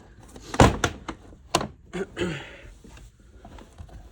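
Plastic interior trim being pulled loose by hand from a car's pillar, with a few sharp knocks and thuds, the loudest about half a second in and another about a second later, followed by a brief scrape of plastic.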